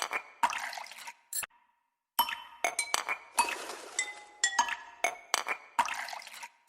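Background music made of bright, glassy chime-like strikes, each ringing briefly, in a repeating pattern with a short silent break about a second and a half in.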